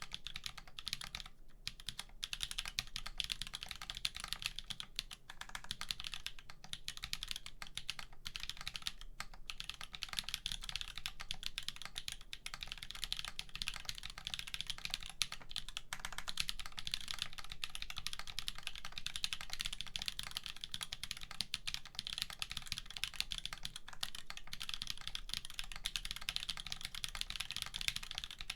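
Steady fast typing on a mechanical keyboard: Holy BSUN tactile switches in an aluminum Wampus prototype with a POM flex plate and GMK keycaps, with no dampening, giving a dense run of keystroke clacks with only a few brief pauses.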